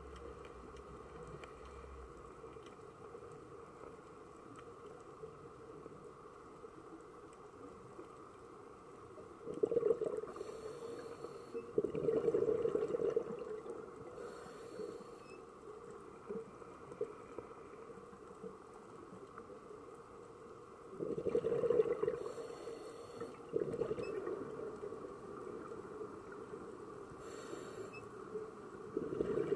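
Underwater sound through a camera's housing: a steady low hum, with a scuba diver's exhaled regulator bubbles rushing out four or five times, each burst lasting a second or two.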